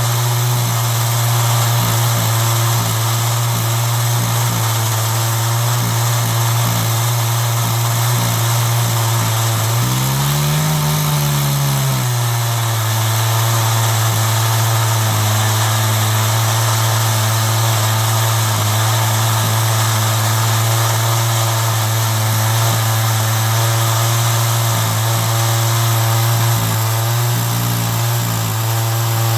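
Chainsaw on an Alaskan chainsaw mill running steadily under load, ripping a walnut log into slabs. Its pitch rises briefly about ten seconds in and drops back.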